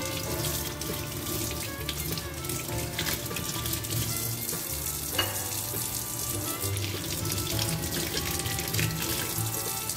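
Tap water running into a stainless steel sink, splashing over an aubergine and then an egg as they are rinsed by hand, over background music.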